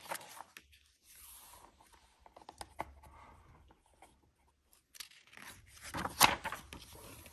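Pages of a hardcover picture book being handled and turned, with paper rustling and scraping under the hands. The loudest rustle comes about six seconds in.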